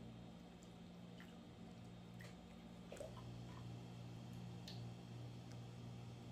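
Faint wet squishing and scattered small clicks from raw chicken breasts being handled in milk and in a metal mesh colander, over a steady low hum.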